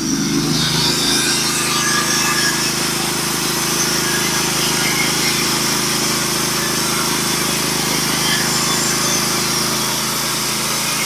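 Norwood HD36v2 portable bandsaw mill sawing through an oak log: the gas engine comes up to speed right at the start, then runs steadily under load while the band cuts, with a steady hiss from the cut.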